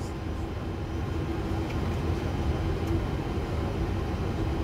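Steady low rumble with a faint steady hum on a parked Boeing 747 freighter's flight deck, engines not yet started: the aircraft's systems running before pushback.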